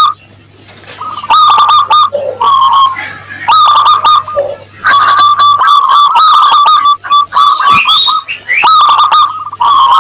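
Zebra dove (perkutut) singing: several clear, ringing cooing phrases of quick repeated notes, with short gaps between them.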